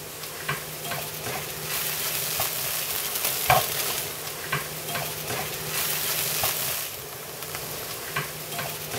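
Diced eggplant sautéing in oil in a stainless steel skillet, sizzling steadily, while a slotted spatula stirs it and knocks and scrapes against the pan with scattered clicks.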